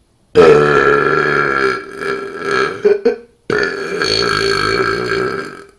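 A man's long, loud belches on command, made by swallowing air and releasing it: two in a row, the first about three seconds long and dropping in pitch at its start, the second following a moment later and lasting about two seconds.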